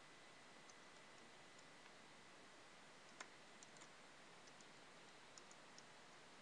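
Faint computer-keyboard keystrokes, a few scattered clicks at a time, over a low steady hiss with a thin high whine.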